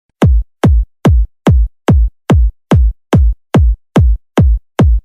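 Electronic music: a lone drum-machine kick drum repeating about two and a half times a second, each hit sweeping sharply down in pitch into a deep bass note, with silence between hits. It is a bass test for car sound systems.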